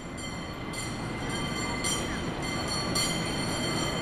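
Electric tram running on rails: a steady rumble that slowly grows louder, with thin steady whining tones above it.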